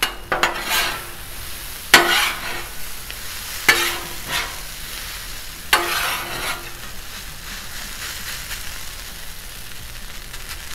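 Shredded hash browns sizzling on the hot steel top of a Blackstone griddle, with metal spatulas scraping and clacking against the plate in about five sharp strokes over the first six seconds. After that only the steady sizzle remains.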